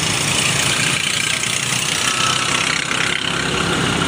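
Motorcycle engine running steadily under way, with wind rushing over the microphone and the hum of surrounding road traffic.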